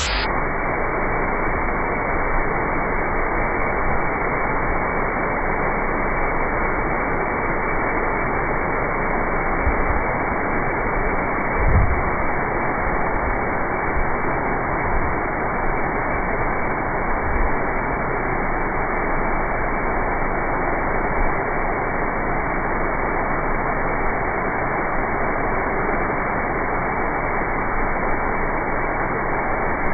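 Steady hiss of POLYON controlled-release fertilizer granules pouring in a continuous stream onto the mesh grate of a spreader truck's hopper, with a few brief low bumps, the loudest about twelve seconds in.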